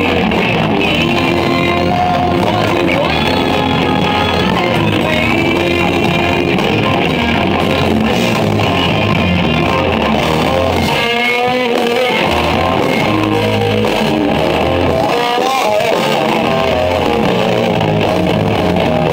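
Live rock band playing loud: distorted electric guitars, bass guitar and a drum kit. The bass and drums drop out for a short break about eleven seconds in, then come back.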